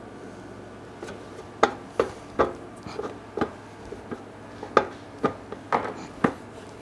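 A dozen or so irregularly spaced knocks and clacks of hard objects, each with a short ring, starting about a second in.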